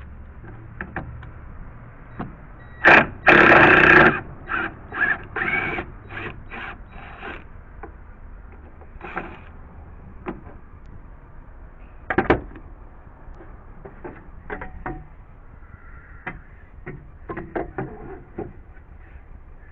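Cordless drill driving a screw, one run of about a second followed by a string of short bursts. Scattered knocks and clicks follow.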